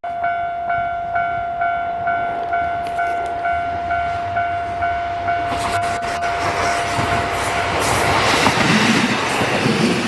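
Japanese level-crossing warning bell ringing at about two strokes a second. About halfway through, a train reaches the crossing and passes: its running noise and wheel clicks grow loud and cover the bell near the end.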